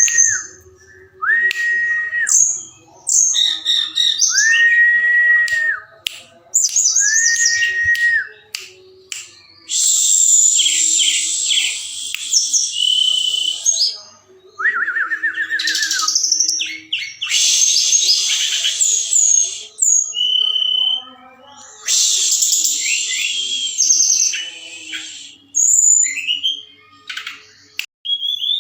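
Tledekan gunung songbird singing: a few long, flat whistled notes, then long phrases of fast, high twittering with short pauses between them.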